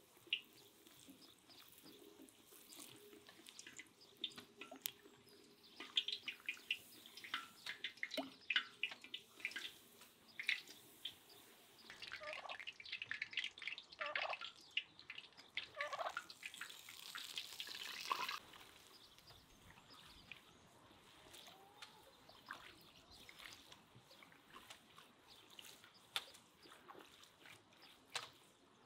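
Hot oil crackling around a cheburek deep-frying in a cast-iron cauldron, with oil ladled and trickling over it. About halfway through, a white domestic turkey gobbles several times.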